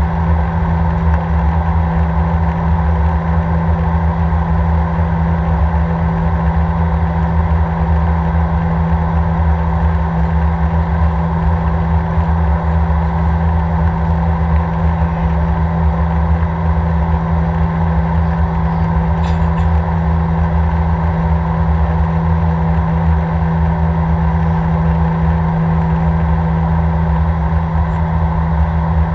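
Steady in-flight cabin noise of an Airbus A319, heard from a seat by the wing: a constant drone of the jet engines and rushing air, with a strong low hum.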